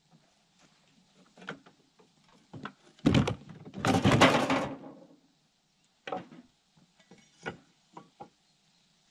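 Wood being handled: scattered knocks, and about three seconds in a loud scrape lasting about two seconds.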